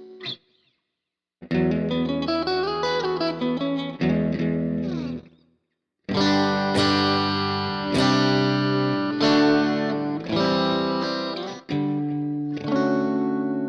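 Clean electric guitar tone from a PRS SE Silver Sky played through a ToneLib GFX amp-simulator preset: a short phrase of picked single notes, a brief pause, then strummed chords ringing out, with a short break near the end.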